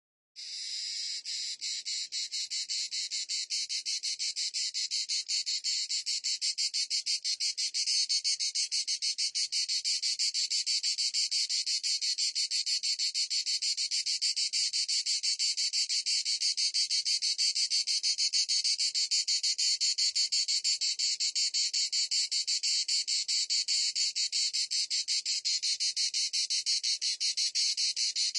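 Cicada calling: a steady, rapidly pulsing high buzz that starts about half a second in.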